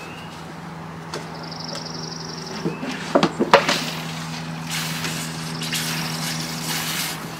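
Hand pump on a bucket of sugar syrup being worked to fill a spray bottle: a quick run of plastic clacks from the pump a little after three seconds in, then liquid hissing into the bottle. A steady low hum runs underneath, and a high rapid trill comes and goes.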